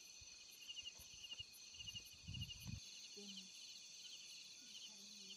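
Crickets chirping at night, faint and steady, in evenly repeated chirps over a continuous high trill. A few soft low thumps sound about two seconds in.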